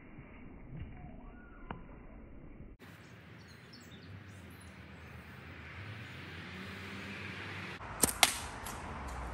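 Slingshot fired with clay ammo: two sharp cracks about a quarter second apart near the end, the loudest sounds by far. Before them, only faint handling and outdoor background while the slingshot is loaded and drawn.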